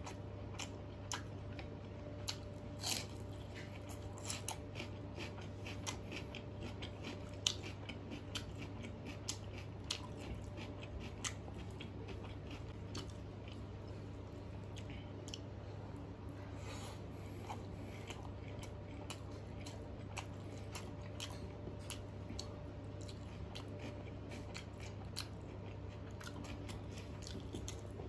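Close-miked mouth sounds of a person eating rice and mutter paneer by hand: wet chewing with many small clicks and crunchy bites, some of them raw onion. A steady low hum runs underneath.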